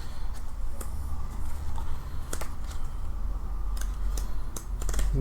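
Pages of a collector's booklet being flipped and handled: scattered light paper rustles and taps over a steady low hum.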